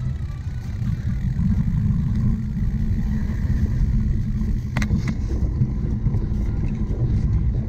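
Cyclocross bike being ridden over rough ground: a steady low rumble of tyres and wind on the microphone, with one sharp click about five seconds in.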